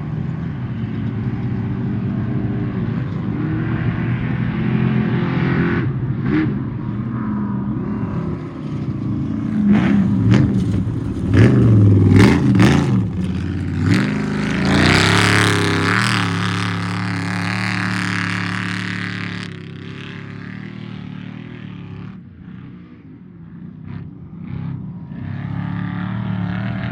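Off-road race truck engine running at varying revs, rising and falling in pitch and revving hard about ten seconds in. Scattered knocks come through, and a loud rushing hiss runs for a few seconds in the middle.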